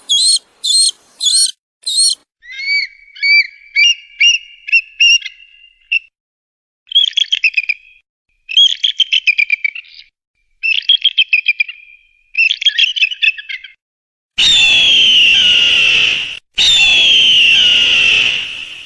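Eagle calls. First comes a quick run of sharp, high piping notes, then bursts of chattering notes. About two-thirds of the way in, two long, harsh screams follow, each about two seconds, sliding down in pitch as they fade.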